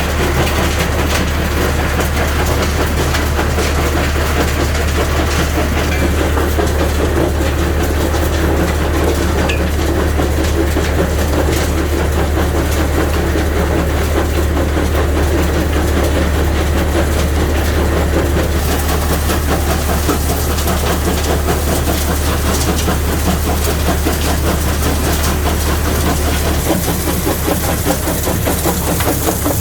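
Quarry rock-crushing machinery running, with a steady low hum under a dense, continuous rattle and clatter of rock. The hum changes near the end.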